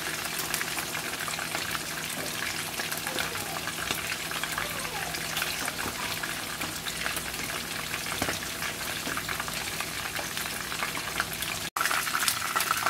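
Chicken pieces frying in hot oil in a wok: a steady sizzle thick with fine crackles and pops. Just before the end it cuts out for an instant and comes back a little louder.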